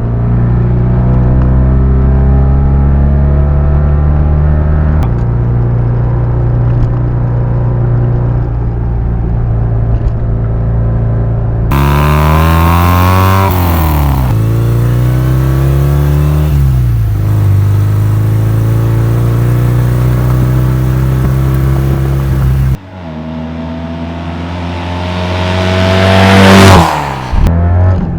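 Vintage Fiat 500 Abarth replica's air-cooled two-cylinder engine running with no music or talk over it. It holds a steady speed at first, then rises and falls twice in pitch, and later climbs in one long rise in revs that breaks off sharply near the end.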